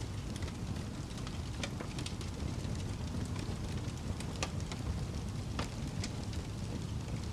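Wood fire crackling: irregular sharp pops and snaps over a steady low roar.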